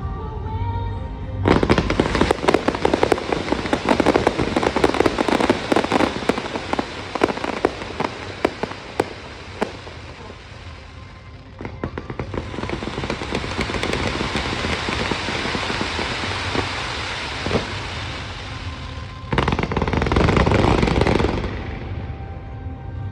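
Firecrackers going off in a dense, rapid string of cracks starting about a second and a half in. The cracking gives way to a steadier hiss partway through and flares up again briefly near the end, with music underneath.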